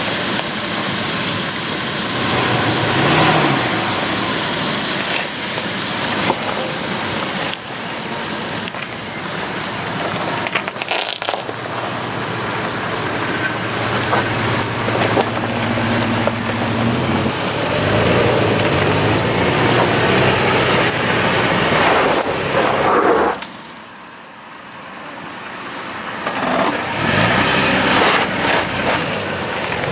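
Off-road 4x4 truck driving, engine running under steady tyre and terrain noise. The sound drops sharply for a few seconds late on, then comes back.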